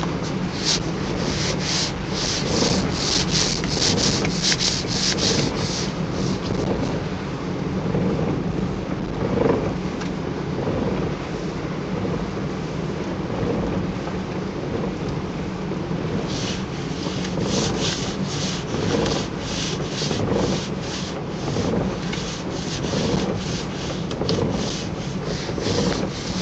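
Shiny PVC rain suit rustling and crinkling as the wearer moves, in quick repeated strokes, over a steady low hum of car cabin noise. The rustling comes in two stretches, at the start and again from a little past the middle.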